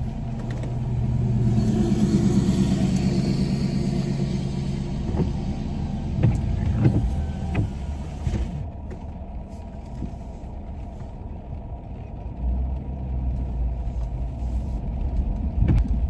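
Pickup truck driving, its engine hum and tyre noise heard from inside the cab. The hiss drops away about halfway through, leaving a lower rumble.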